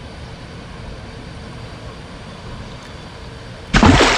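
Low steady rumble, then about three and a half seconds in a sudden loud splash at the surface beside the boat as the hooked jack crevalle thrashes.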